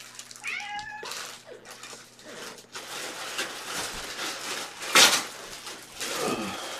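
A cat meowing, one short call that falls in pitch about half a second in, with a loud brief bump about five seconds in.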